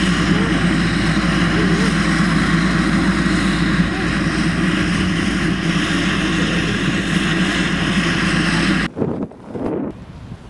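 Single-engine turboprop of a Cessna Caravan jump plane running steadily at ground idle, propeller turning. It cuts off abruptly about nine seconds in, followed by a few short gusts of wind on the microphone.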